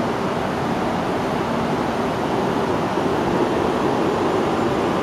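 CRH2C high-speed electric multiple unit rolling slowly along the platform: a steady rumble of wheels and running gear with a faint steady hum, growing slightly louder near the end.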